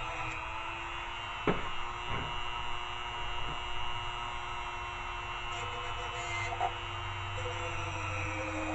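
Dremel rotary tool running at speed with a steady high hum of several stacked tones, its pitch dipping and drifting slightly as it is worked on a steel knife edge; a few sharp ticks of contact sound in the first few seconds.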